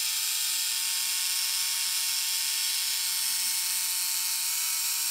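Small electric motor and worm-gear drive of a 1950s Gilbert HO scale ALCO DL600 model locomotive running steadily on the bench, a thin high whine over a constant hiss. The freshly oiled and greased mechanism turns freely, a nice running motor.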